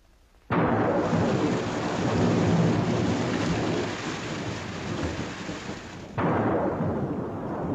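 Heavy rainstorm with thunder rumbling, coming in abruptly about half a second in; the downpour cuts in again sharply about six seconds in.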